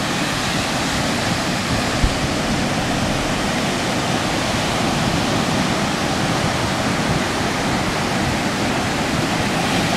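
Surf breaking on a beach: a steady, even rushing wash of waves, with a brief low thump about two seconds in.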